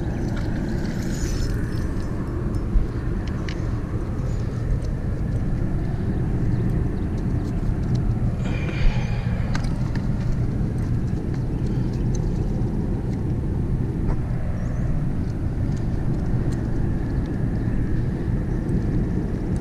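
Steady low rumble, with a few faint clicks.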